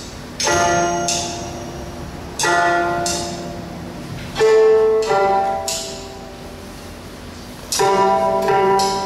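Slow, sparse instrumental music of plucked-string notes: about six single notes, some in pairs, struck a couple of seconds apart, each ringing out and fading.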